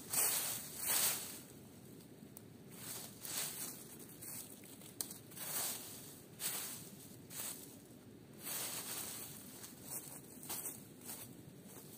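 Irregular rustling and scuffing, a short burst every second or so, over a steady low rushing noise.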